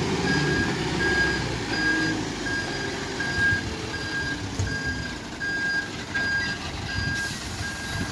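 Reversing alarm of a DAF LF food-waste collection lorry, a steady single-pitch beep repeating about every three-quarters of a second, over the lorry's diesel engine running as it manoeuvres.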